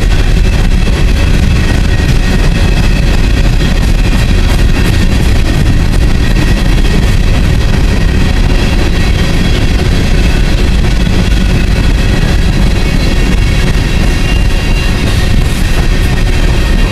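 Empty coal hopper cars of a freight train rolling past close by: a loud, steady rumble of steel wheels on rail, with a faint high ringing above it.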